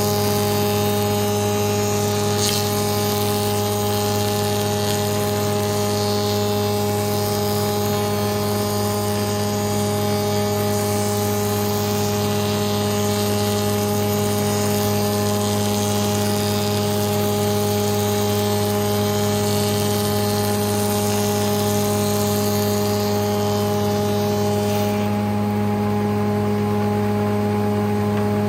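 Spindle moulder with a Steff 2034 power feeder cutting a profile along a softwood board, a steady motor hum under the high-pitched hiss of the cutter working the wood. About 25 seconds in, the cutting noise stops as the board runs clear, leaving the machine and feeder running empty.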